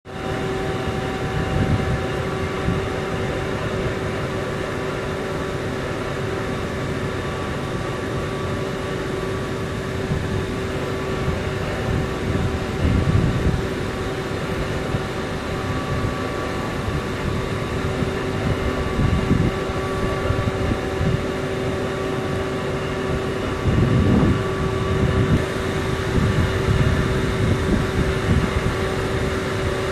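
Steady industrial drone of a coal-fired thermal power station's machinery: a constant rushing hum with a few steady tones held in it. Low gusts of wind buffet the microphone several times, most strongly a little past the middle and near the end.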